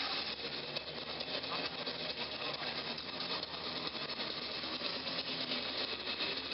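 Steady background noise of a large sports hall, with no single sound standing out.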